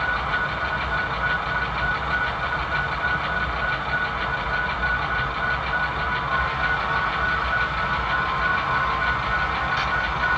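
Model diesel locomotive's sound system playing a diesel engine idling steadily through its small speaker, with a steady high whine running through it.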